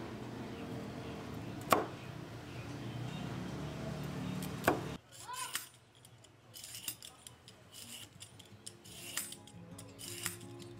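Two sharp knocks on a wooden cutting board among cut broccoli, then, after a sudden drop in the background, a handheld vegetable peeler scraping ridged strips off a raw carrot in short, irregular rasping strokes.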